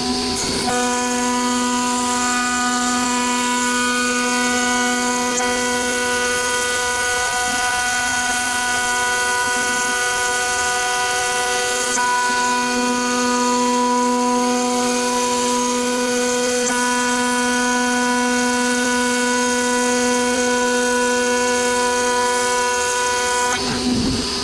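CNC router spindle with a 6 mm flat end mill cutting internal profiles in 18 mm melamine MDF: a steady whine of several even tones over cutting noise. The lowest tone fades for a few seconds partway through, then returns.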